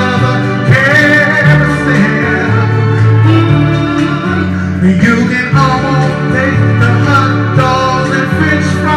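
A man singing R&B live into a microphone over instrumental accompaniment with a steady bass line, heard through a club's PA system.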